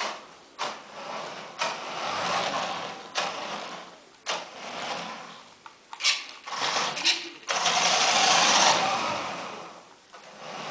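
Small electric motor and plastic gearbox of a toy radio-controlled truck whirring in bursts as it drives on and off, with sharp clicks between the runs; the longest and loudest run comes about three-quarters of the way through.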